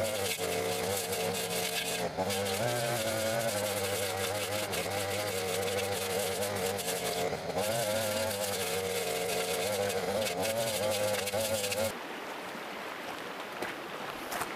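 Backpack brush cutter's small petrol engine running at high speed while cutting grass and brush, its buzzing pitch wavering as the load changes. It cuts off abruptly about twelve seconds in, leaving only faint outdoor background.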